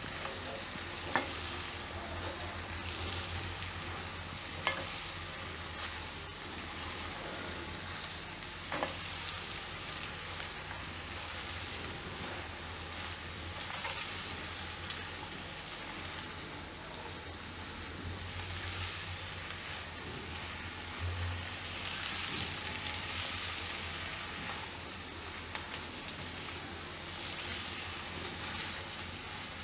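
Shredded cabbage and sliced potatoes sizzling in oil in a non-stick pan while a silicone spatula stirs and turns them over, a steady frying hiss. A few soft knocks of the spatula against the pan come in the first nine seconds.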